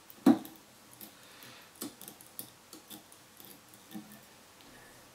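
Light clicks and taps of fly-tying tools being handled at the vise, with one short, louder sound about a third of a second in.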